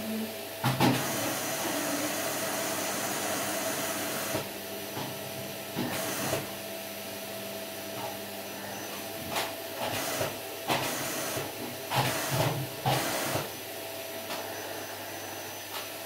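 Canister vacuum cleaner running steadily, a constant hiss with a hum. Several louder bursts and knocks come about six seconds in and repeatedly between about ten and thirteen seconds.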